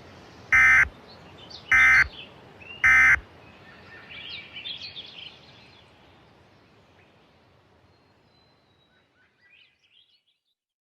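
Three short, identical screeching bursts of Emergency Alert System digital data, about a second apart: the end-of-message (NNNN) code that closes an EAS alert. Faint chirping follows and fades out, leaving near silence.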